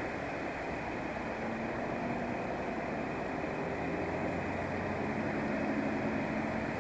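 Steady rumble of idling vehicle engines and motorway traffic, with a faint low hum that holds the same pitch.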